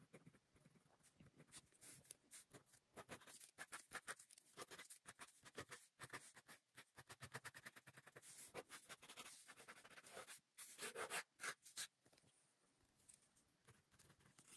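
Pen scratching across lined binder paper in rapid, faint hatching strokes. The strokes thin out about twelve seconds in.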